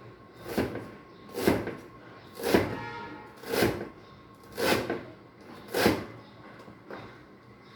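Knife chopping vegetables on a cutting board with slow, separate strokes, six knocks about a second apart.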